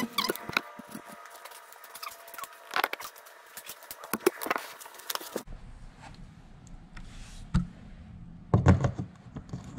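Work-handling noise: scattered sharp clicks and knocks, then a cluster of heavier dull knocks near the end. A little past halfway the background hum changes abruptly.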